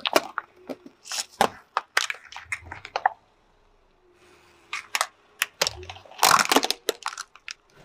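Hard plastic cracking and crunching under a slowly rolling car tyre. First a plastic jar of candy beads gives a run of sharp cracks and snaps over about three seconds. After a short pause, a plastic puppy toy and a toy fishing game give a second run of cracks and crunching, starting just under five seconds in.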